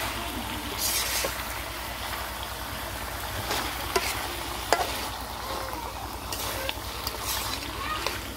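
Duck meat and potatoes sizzling in thick spice paste in a metal wok, stirred with a metal spatula that scrapes and clicks against the pan several times.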